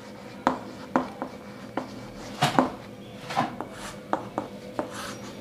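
Chalk tapping and scraping on a chalkboard as letters are written and underlined: a string of sharp clicks, one or two a second, with a few longer scratchy strokes around the middle.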